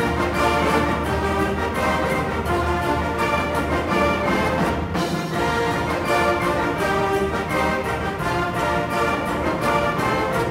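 Orchestral music with brass, playing at an even level.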